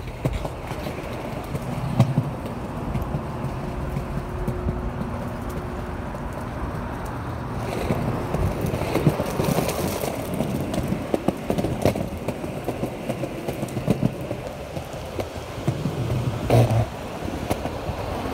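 Skateboard wheels rolling on a concrete sidewalk: a steady rolling rumble with knocks now and then.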